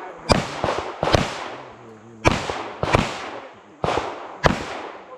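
Pistol fired in single shots, about six sharp cracks spaced roughly half a second to a second apart, each trailing off in a short echo.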